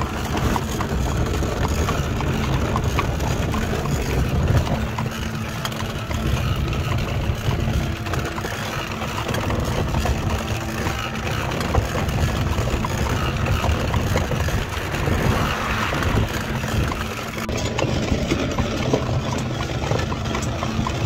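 Horse-drawn covered wagon rolling along a paved road: a steady rumble of the wheelwright-made wheels with a continuous clatter and rattle of the cart's frame.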